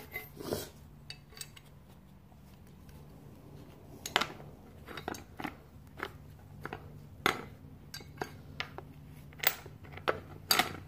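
Metal bike parts clinking and knocking as a black metal bar is worked against a bicycle frame, in sharp irregular knocks that come about every half second to second from about four seconds in, over a faint steady low hum.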